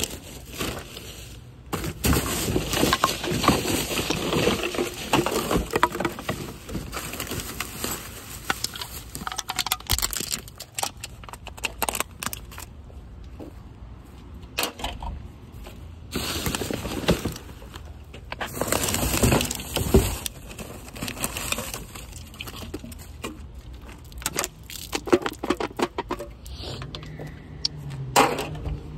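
Rummaging through plastic garbage bags for empty aluminum drink cans: rustling, crackling plastic mixed with the clatter and clink of cans being handled and dropped into a plastic milk crate, in irregular bursts.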